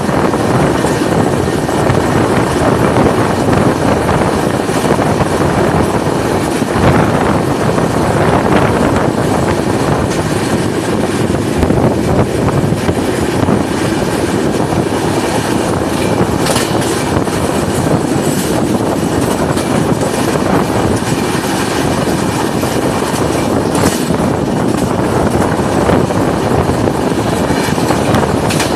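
Passenger train running at speed, heard from an open door or window: a steady rumble and rush of wheels on rails and passing air, with a few sharper clatters midway and later.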